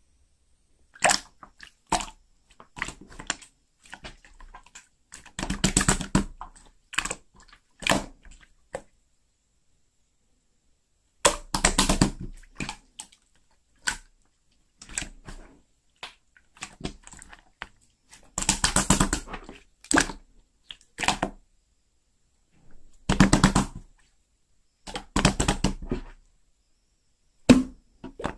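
Clear slime being pressed and stretched by hand, giving bursts of sticky clicks and crackles, with silent pauses between handfuls.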